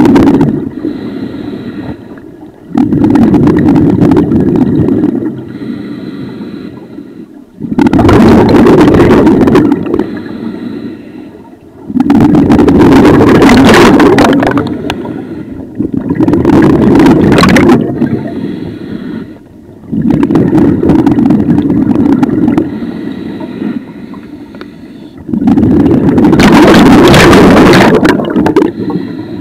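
Scuba diver breathing through a regulator underwater: a loud rush of exhaled bubbles about every four seconds, seven times, each followed by a softer hissing inhalation through the regulator.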